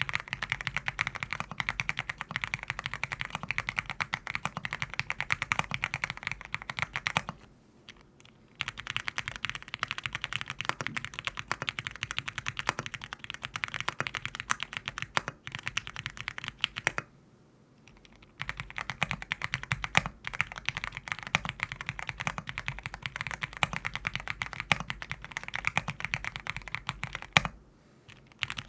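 Fast, continuous typing on a 75% mechanical keyboard: dense runs of keystrokes clacking, broken by three short pauses, at about seven seconds, about seventeen seconds and near the end.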